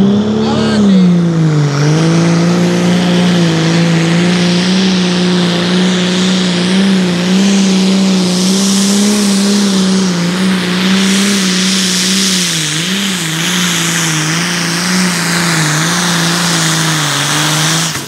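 John Deere 7530 Pro Stock pulling tractor's diesel engine running hard under full load as it drags the pulling sled, a steady loud drone that rises at the start, sags about two seconds in and wavers briefly later. A high hiss runs over it.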